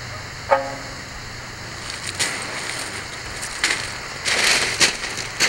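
A single plucked sanshin note about half a second in, then footsteps crunching irregularly on rounded beach cobbles from about two seconds in.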